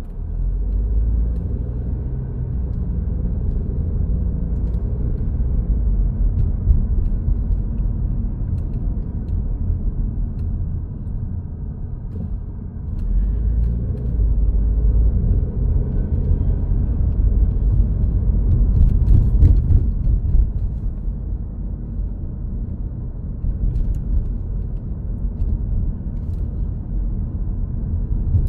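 A continuous low outdoor rumble, swelling and fading unevenly and loudest a little after the middle, picked up by a smartphone's microphone.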